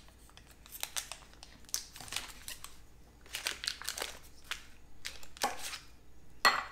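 Paper wrapper of a stick of butter crinkling in bursts as it is peeled open by hand, with a sharp knock near the end as a knife cuts through the butter.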